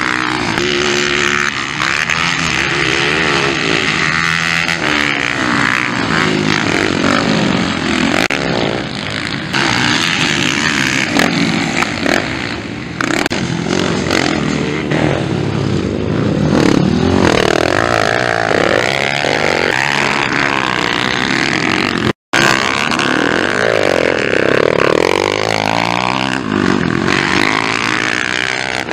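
Motocross bike engines revving hard as riders pass close by, the engine notes rising and falling with the throttle and as each bike goes by. The bikes are small four-stroke dirt bikes of the Honda CRF 230 class. The sound cuts out for a fraction of a second about two-thirds of the way through.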